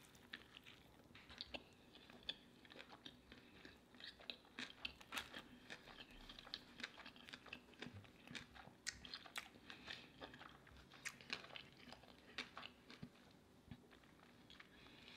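Faint, close-miked chewing of a bite of cheeseburger, with many small wet clicks and crunches from the mouth.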